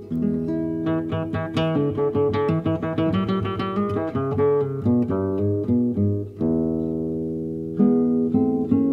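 Acoustic guitar music: quick runs of plucked notes, with a chord left ringing for more than a second about six seconds in.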